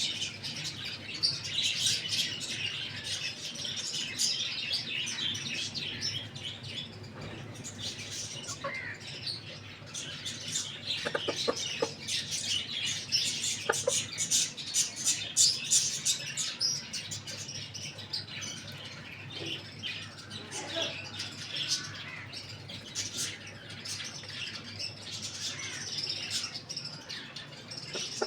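A flock of small birds chirping together in a dense, continuous chatter, with a few short, lower calls now and then.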